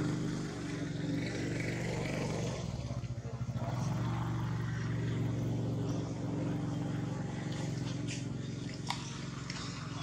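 A motor engine running steadily at idle, its hum wavering briefly about three seconds in, with a few faint clicks near the end.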